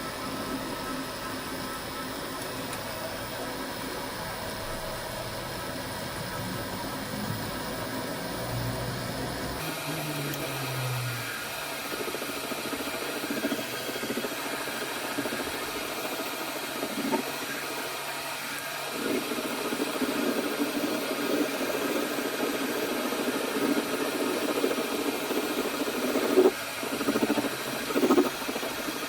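A small machine's motor running steadily. About ten seconds in the sound changes abruptly, with a brief falling tone. After that it runs rougher and more unevenly, with a few sharp louder moments near the end.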